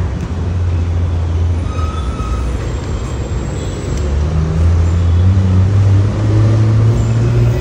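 Street traffic: a loud, low engine rumble that rises slightly in pitch in the second half, with a few faint, brief higher tones over it.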